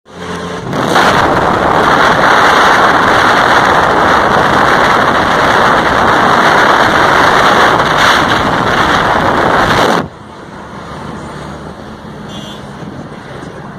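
Off-road vehicle running hard under load: a loud, dense roar that drops off sharply about ten seconds in to a quieter running sound.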